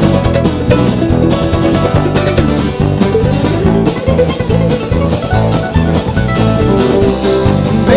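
Instrumental break of a country song in a bluegrass style: fast picked string instruments over a steady beat, with no singing.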